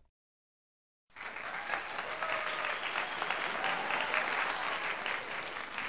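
Crowd applauding, with some cheering voices, starting abruptly about a second in after dead silence.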